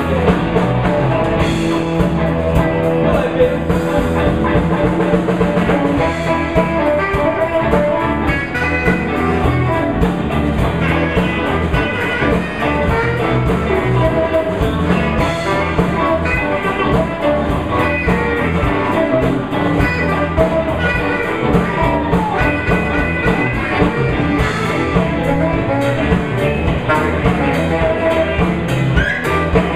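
Live blues band jamming, with electric guitar, bass, drum kit and saxophone.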